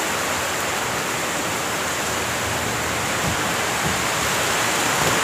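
Heavy storm rain falling steadily, a dense even hiss.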